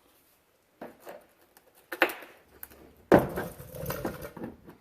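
Pliers clicking and scraping against the plastic retaining clips of a pickup's fender as they are pried out. A sharp, loud clack about three seconds in is followed by a second or so of scraping and rattling.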